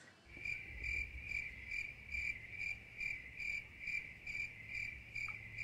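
Crickets chirping: an even high chirp repeating about two and a half times a second, starting and stopping abruptly, the edited-in "crickets" sound effect for an awkward silence.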